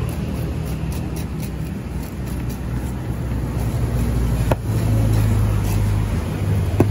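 Low, steady hum of a motor vehicle engine running close by, growing louder about two-thirds of the way in. Two sharp clicks stand out, one near the middle and one near the end.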